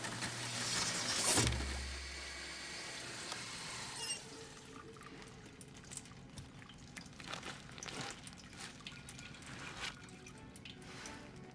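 Water running into a stainless-steel kitchen sink, stopping abruptly about a second and a half in. After that it is quieter, with faint scattered rubbing and clicking as a plastic-bagged hand wipes the sink and drain.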